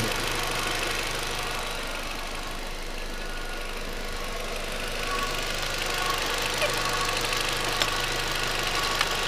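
2004 Volkswagen Jetta's 1.8-litre four-cylinder engine idling steadily, with a few faint clicks in the second half.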